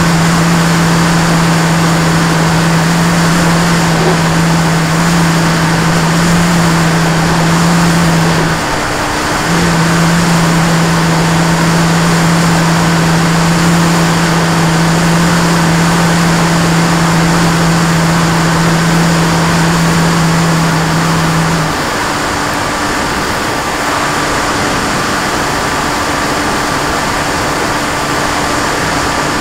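Radio-controlled model aircraft's motor and propeller holding a steady hum under heavy wind rush on the onboard microphone. The hum drops out for about a second nine seconds in, then stops about twenty-two seconds in, leaving mostly wind and a fainter, higher tone.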